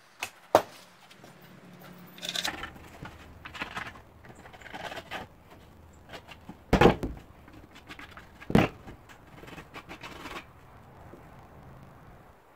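Vinyl upholstery cover being handled and pulled over a foam seat cushion: rustling and scraping of the material, with a few sharp knocks, the loudest two in the second half.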